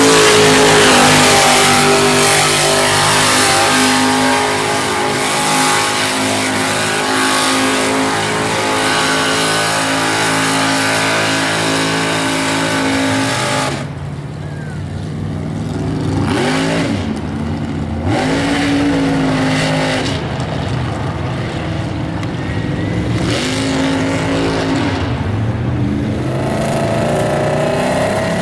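Mud-bog truck engines running hard at high revs through a mud pit. The revs are held high for the first half; after a break about halfway in, they rise and fall in several surges.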